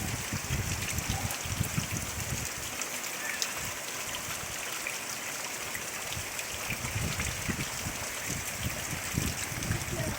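Heavy rain falling steadily: a dense hiss dotted with countless separate drop ticks, with low rumbles coming and going in the first couple of seconds and again near the end.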